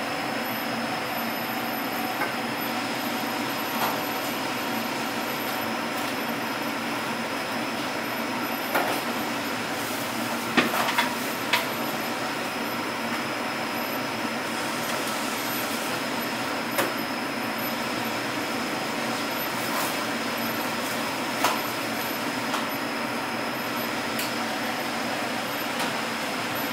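Steady whirring hum of commercial kitchen machinery with a thin high whine over it. A few light clicks and taps come through, several close together about eleven seconds in.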